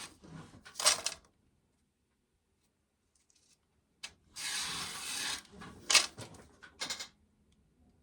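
Dry corn kernels rattling and clattering as ears are shelled, in two short bursts about three seconds apart, with a few sharp clicks of kernels striking near the end.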